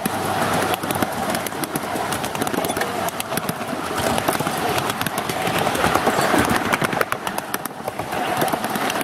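Miniature ride-on railway cars rolling along the track, the small steel wheels rumbling and clattering steadily over the rails with a dense run of clicks and rattles.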